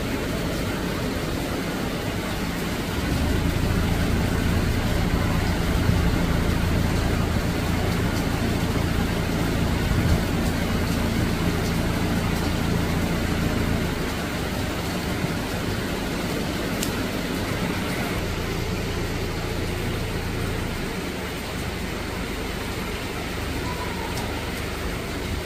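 Steady heavy typhoon rain falling on leaves, with a low engine hum that comes in about three seconds in, is strongest until about fourteen seconds and dies away near twenty-one seconds.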